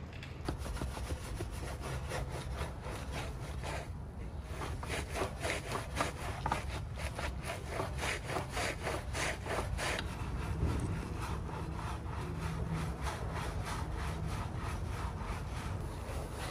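Wheel brushes scrubbing a soapy alloy wheel: quick rhythmic back-and-forth strokes of wet bristles over the spokes, over a steady low hum.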